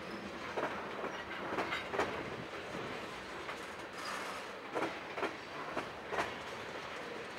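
Freight train tank cars rolling past: a steady rumble of steel wheels on rail, broken by sharp clickety-clacks that come in pairs as wheelsets cross the rail joints.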